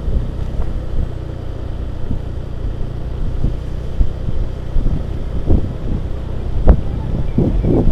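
Motor scooter engine running steadily while riding, with wind noise on the microphone. A few louder thumps come in the last few seconds.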